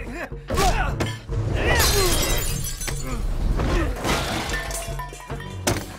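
Film fight sound effects: hits and thuds, with glass shattering about two seconds in, over a background music score.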